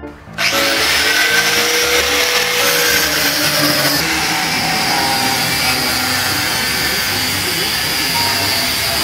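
An angle grinder cutting into a metal bicycle frame: a loud, steady grinding hiss with a high whine in it. It starts suddenly about half a second in, with music playing faintly underneath.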